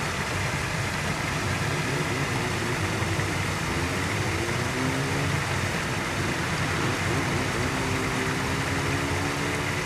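Steady rush of flowing river water mixed with the drone of passing road traffic, with engine tones rising and falling twice.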